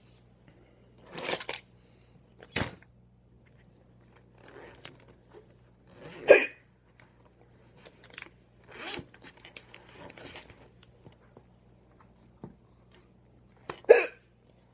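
Hard hiccups, about five sudden ones a few seconds apart, the loudest about six seconds in and near the end.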